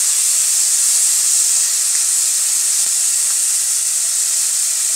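Chopped tomato sizzling in hot oil in a kadhai with fried onion, ginger and garlic, a steady loud hiss as it is stirred.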